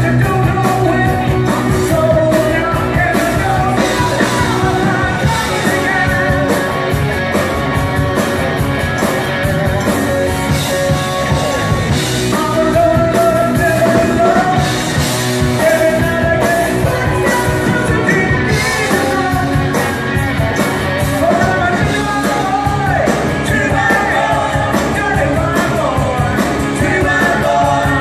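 Live rock band playing a song with a lead singer: electric guitars, bass and keyboards under the vocal line.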